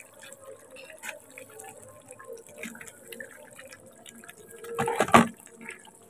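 Gudeg koyor, beef tendon in a spiced sauce, simmering in a metal pan with small bubbling pops while a metal spoon stirs through it. About five seconds in there is a louder scrape and clink of the spoon against the pan.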